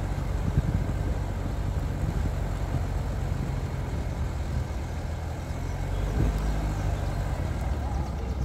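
A motor vehicle's engine running steadily with a low rumble.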